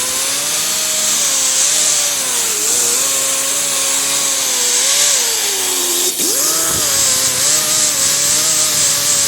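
A power tool spinning a new abrasive stripping disc against a car's fender, taking the paint and primer down. It makes a steady whine with a harsh abrasive hiss, and the pitch sags and wavers as the disc is pressed into the panel. About six seconds in it briefly drops and then picks back up.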